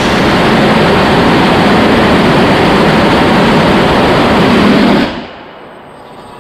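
HyLIGHT 10 kN hybrid rocket engine firing on a test stand, a loud, steady rushing noise. It cuts off sharply about five seconds in, leaving a much quieter hiss.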